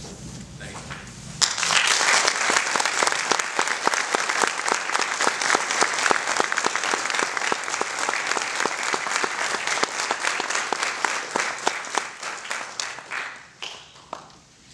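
Audience applauding, starting suddenly about a second and a half in and dying away near the end.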